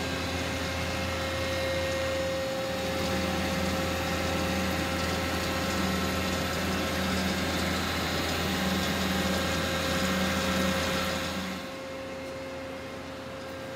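Mori Seiki SL-65B CNC turning center standing powered up, giving a steady machine hum with a constant whine and a slowly pulsing low drone. Near the end the hum drops to a quieter, thinner level.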